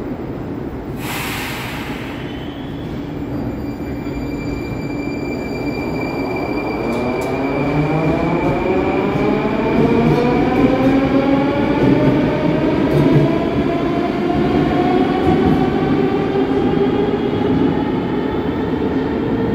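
Metro train pulling out of a station platform: a short hiss about a second in, then the traction motors' whine climbing steadily in pitch as the train accelerates, over the rumble of the wheels on the rails, growing louder as the cars pass.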